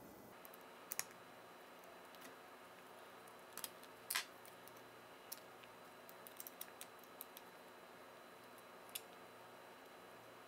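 Faint, scattered small clicks and taps of a hex key and screws against a printed plastic part being handled, over a low room hiss. The sharpest click comes about four seconds in, with a quick run of small ticks a couple of seconds later.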